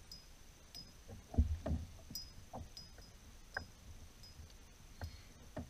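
Irregular soft knocks and thumps from handling on a plastic fishing kayak as a caught fish is held up and moved about, the loudest pair a little over a second in.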